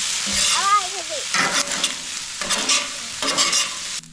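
Fried rice sizzling on a steel flat-top griddle, with a metal spatula scraping and stirring it across the hot surface in repeated strokes.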